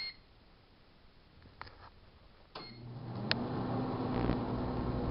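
1978 GE Dual Wave microwave oven being set and started: a keypad beep, a few clicks, then the oven switches on about two and a half seconds in with a hum that rises briefly and settles into a steady running hum and fan noise, with a sharp click soon after it starts.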